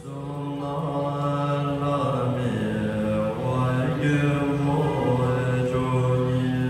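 Buddhist monks chanting a prayer in low voices, with long held notes that slide slowly in pitch.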